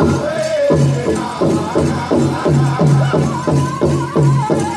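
Powwow drum group beating a big drum in a steady beat of about three strokes a second, with singers' high wavering voices over it, singing a prairie chicken dance song.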